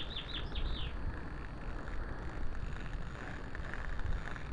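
Wind rumbling on the microphone, a steady low noise. In the first second, a bird gives a quick run of short, falling chirps.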